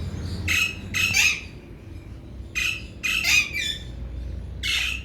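Alexandrine parakeets squawking, repeated calls in short clusters about every two seconds.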